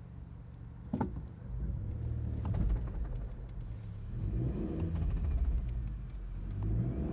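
Honda CR-V's 2.0-litre engine pulling away in first gear up a slight incline as the clutch is let out: a sharp click about a second in, then a low rumble that rises and falls under load, with small scattered clicks. The owner is chasing a rattle at the clutch, which he likens to springs rattling.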